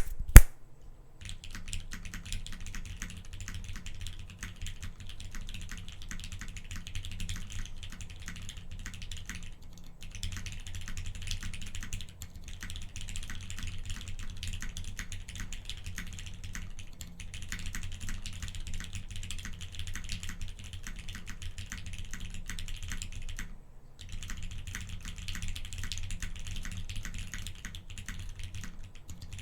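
Continuous typing on a Gok 7V mechanical keyboard with Krytox-lubed Cherry MX Black linear switches on a polycarbonate half plate and GMK keycaps: rapid, dense keystrokes with brief pauses about ten, twelve and twenty-four seconds in. Two loud knocks come right at the start.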